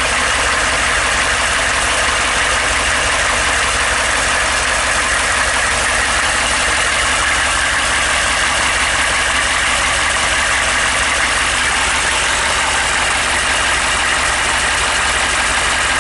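6.5-litre turbo diesel V8 idling steadily at an even level, with no change in speed.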